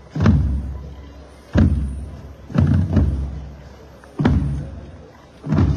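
Procession bass drum beaten in a slow, solemn march: a deep boom about every second and a quarter, with one quick double stroke in the middle, each stroke ringing on briefly.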